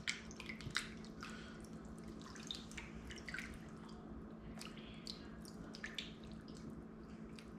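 Hands working raw chicken in a bowl of salted water: small, scattered splashes and drips.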